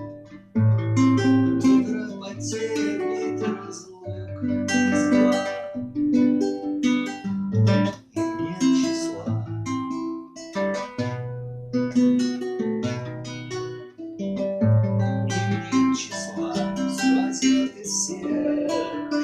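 Acoustic guitar playing an instrumental piece of plucked notes and chords.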